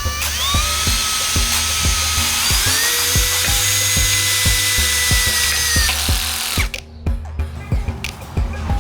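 Electric motor whining as it spins up, running at a steady high pitch that steps higher about two and a half seconds in, then winding down and stopping a little before the end. Background music with a steady beat plays underneath.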